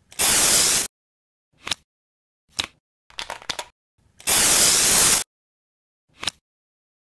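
Two loud bursts of aerosol spray-paint hiss, each about a second long, one at the start and one about four seconds in. Between them come single short sharp clicks and a brief crackling patch.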